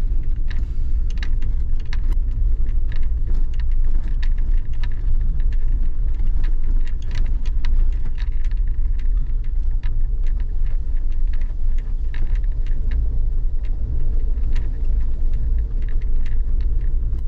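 Suzuki Jimny JB74 driving: a steady low rumble with many small clicks and rattles all the way through.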